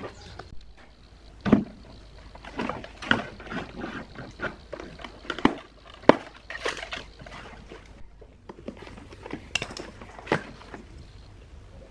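Hands working a rotted particleboard speaker cabinet and its plastic baffle: irregular knocks, scrapes and clatter, with several sharper knocks among them.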